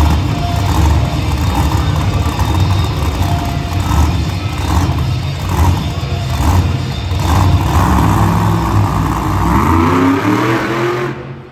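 Monster truck engine running loud with a heavy low rumble, revving up with a rising pitch near the end before the sound cuts off suddenly.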